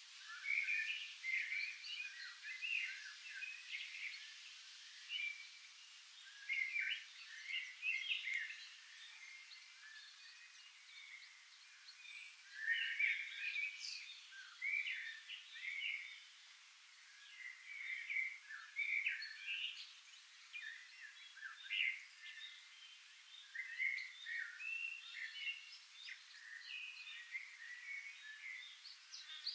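A dense chorus of birds chirping and calling, with many short, overlapping chirps coming and going in irregular clusters. The sound is all high and thin, with nothing low beneath it.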